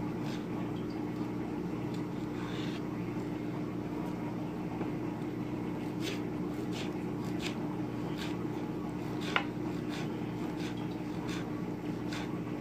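Kitchen knife slicing a tomato on a cutting board: soft, scattered taps of the blade on the board, mostly in the second half, with one louder tap about nine seconds in, over a steady low hum.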